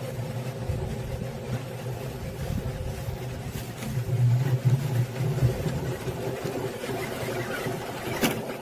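Stainless-steel honey extractor spinning its frames of honeycomb to fling out acacia honey, a steady mechanical hum that swells about four seconds in. A sharp click near the end.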